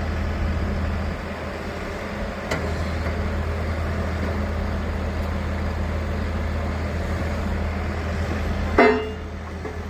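A steady low engine hum that runs on without change, with one brief louder sound near the end.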